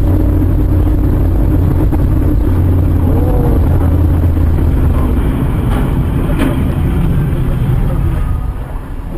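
Steady low rumble of a moving road vehicle's engine and road noise, picked up by a dash cam. It eases off a little near the end.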